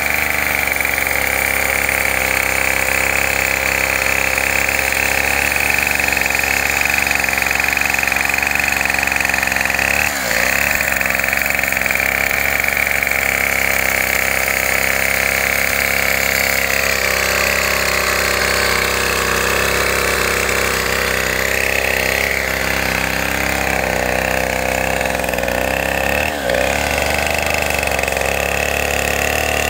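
Two-stroke chainsaw running at high speed under load, ripping lengthwise through a palm log. The steady cutting whine dips briefly twice, about ten seconds in and again near the end.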